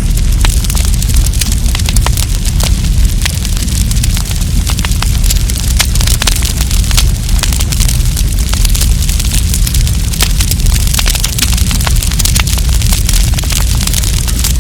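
Wood campfire burning, with dense, irregular crackling and popping over a steady low rumble.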